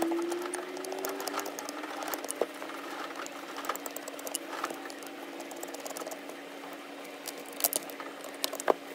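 Screwdriver backing out the small screws that hold the two halves of a 1957 Johnson 7.5 hp outboard carburetor body together: scattered light metallic clicks and scrapes, with a few sharper clicks near the end.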